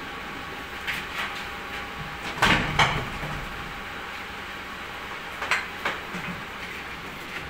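Short scrapes and knocks of a paint brush working in a metal bowl and against a fibreglass frame, the loudest pair about two and a half seconds in and a few lighter ones around them, over a steady background hiss.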